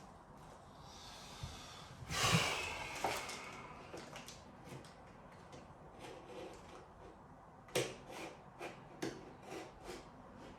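Wallpapering work noises: a loud rustle of paper about two seconds in, fading over a second or so, then a run of light knocks and clicks near the end.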